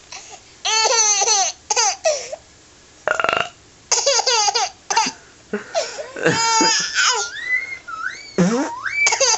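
Baby laughing hard in repeated high-pitched bursts, with a short buzzy imitation fart noise about three seconds in. Near the end the laughter turns into squeals that glide up and down in pitch.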